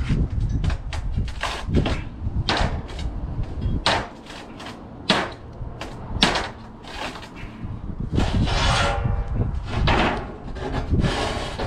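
Irregular knocks and clatters of objects being handled and set down, over a low rumble that fades out for a few seconds in the middle and returns.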